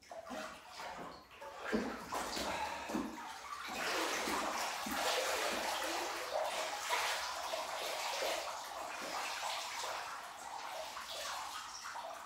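Bathwater sloshing and splashing as a person rises out of a full bathtub, then a steady stream of water running off the body back into the tub.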